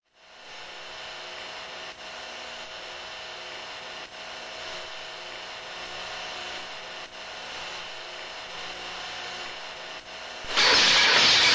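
A machine running steadily with a faint hum of steady tones, then suddenly much louder about a second before the end.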